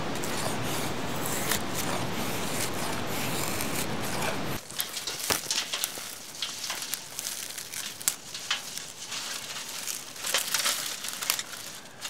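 A steady rushing noise cuts off about four and a half seconds in. After it come crackling, snapping rustles of dry conifer twigs being crumpled and packed into a steel fire stand, with sharp clicks scattered through.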